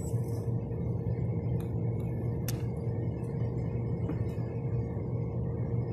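Steady low mechanical drone with a faint even hum, from running rooftop machinery, with a few light metallic clicks from the fan housing and wiring being handled.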